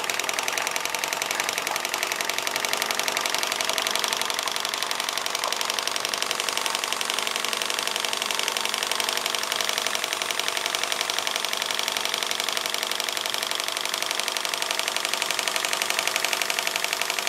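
Stuart D10 twin-cylinder vertical model steam engine running on steam at a fast, steady speed, a rapid even beat of exhaust puffs and mechanical knocking.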